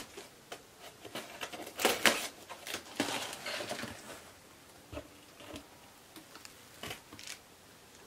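Cardboard shipping box being opened by hand: irregular rustling and scraping of cardboard and tape, busiest in the first half, with a few short light knocks in the second half.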